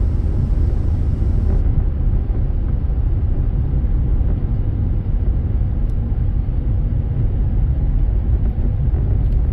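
Car driving along a road, heard inside the cabin: a steady low rumble of road and engine noise.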